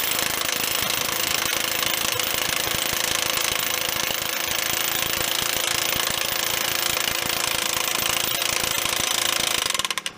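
Powered hammer driving a steel ground post into the soil: a rapid, steady hammering that slows and stops just before the end.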